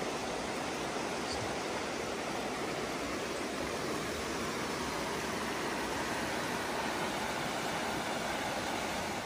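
Shallow river running over rocks and riffles: a steady, even rush of water.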